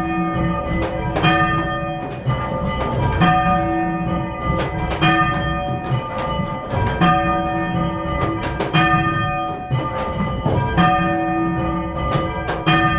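A ring of three church bells, cast by Thomas Mears II of London in 1824, rung full circle in change ringing: strokes follow one another in a steady repeating rhythm, each bell ringing on under the next.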